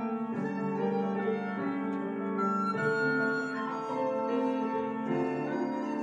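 Recorder playing a melody of held notes over piano accompaniment.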